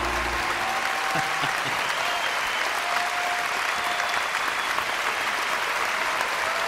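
Concert audience applauding at the end of a song, the music's last held notes stopping about half a second in.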